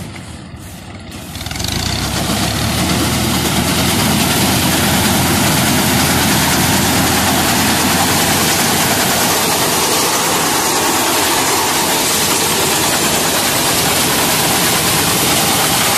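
Tractor engine running with its front-mounted reaper cutting wheat, growing much louder about a second and a half in as it comes close, then staying loud and steady.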